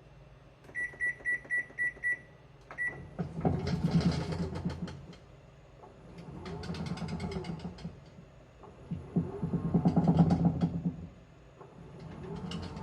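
A new washing machine's control panel beeps several times in quick succession as it is started. Then its motor turns the wash in short runs of about two seconds every few seconds, each time with a whine that rises and falls and a rattle.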